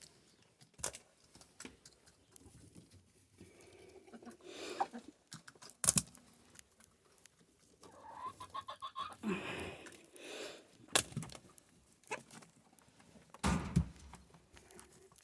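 Hens clucking on and off in short calls, with a few sharp knocks and some rustling in between.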